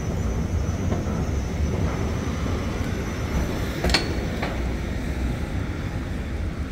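Street background: a steady low rumble of passing traffic, with two short sharp knocks about half a second apart about four seconds in.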